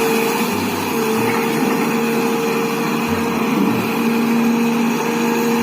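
Motor of a large toy excavator running steadily: a constant hum and whine over a rushing noise.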